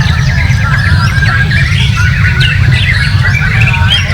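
Dense chorus of many caged songbirds singing and chirping over one another, a contest field of birds in full song, over a steady low rumble.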